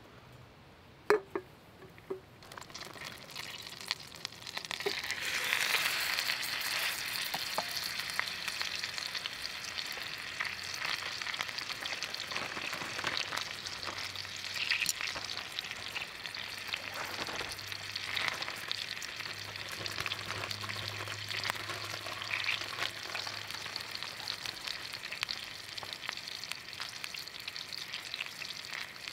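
Elk steak frying in melted butter in a stainless steel pan over a small wood-burning stove: after a sharp knock about a second in, a sizzle builds over the next few seconds and then holds steady with fine crackling.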